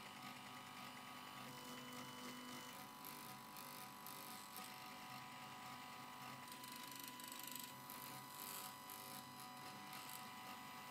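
Stepper motors of a homemade 3D printer built from old CD-ROM drives, whining faintly as they move the build platform and the injection needle, in steady tones that change pitch every few seconds.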